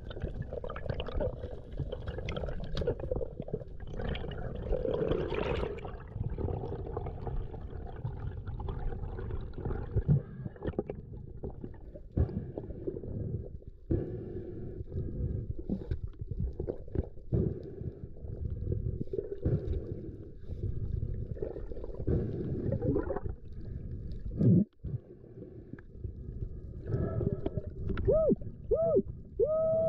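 Muffled water sounds picked up by an action camera underwater: a constant low rumbling of water with scattered knocks, and a few short squeaky tones that rise and fall near the end.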